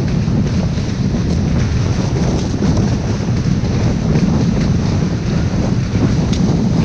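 Strong wind buffeting the microphone as a kiteboard planes across choppy sea, with a steady rush of water and spray.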